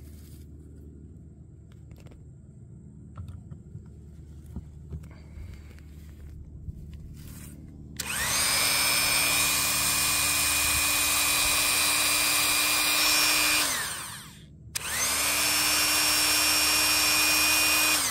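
Dremel rotary tool with a cutoff wheel, running off a DIY power station's 1000-watt inverter as a load test. About eight seconds in, it spins up to a steady high whine for about six seconds and winds down, then spins up again and runs for about three seconds, winding down at the end.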